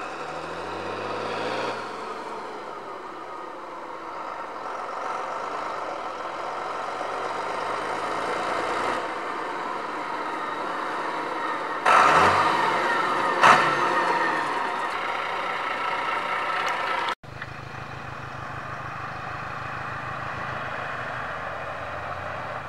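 Valtra 8550 tractor's turbo diesel engine driving hard: the pitch rises as it accelerates, the engine grows loud as the tractor comes close past halfway, then after a sudden cut it runs steadily from farther off as it pulls away.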